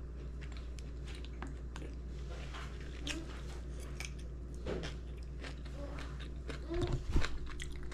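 A person eating close to the microphone: chewing with many small, irregular clicks and crunches, over a steady low hum. A couple of louder bumps come about seven seconds in.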